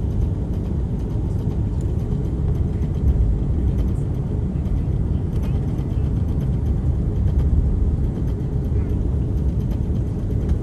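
Steady low rumble inside the cabin of an Airbus A330-300 taxiing onto the runway, its Rolls-Royce Trent 700 engines running at low power.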